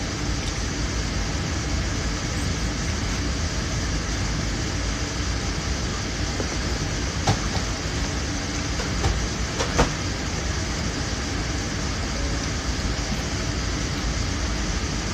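Steady airliner cabin noise, a constant low roar, with a few light knocks and clicks about seven and ten seconds in.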